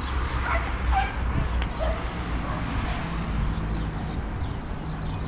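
Street ambience: a steady low rumble under a few short, sharp cries in the first two seconds, and one sharp click.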